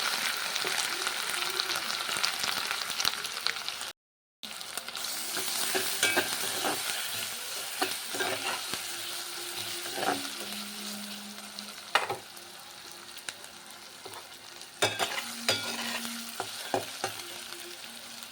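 Ginger frying in hot oil in a pan, sizzling steadily while a spoon stirs and scrapes against the pan in sharp clicks. The sizzle cuts out completely for a moment about four seconds in, and is quieter in the second half.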